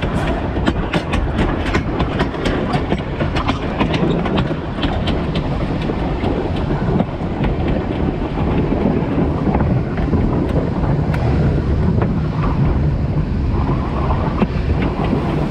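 Narrow-gauge train running, heard from low on the front of the locomotive near the rails: a steady rumble of wheels on track with sharp clicks as the wheels cross rail joints and points. The clicks come thick and fast in the first few seconds and thin out later.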